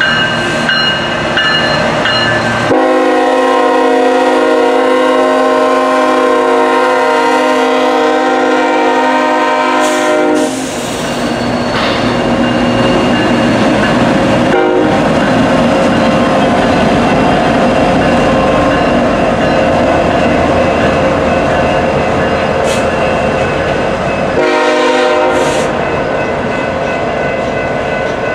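Diesel freight locomotives of a BNSF coal train rolling past with a steady rumble of engines and wheels, while a locomotive air horn sounds one long blast of about eight seconds starting a few seconds in and a short blast near the end.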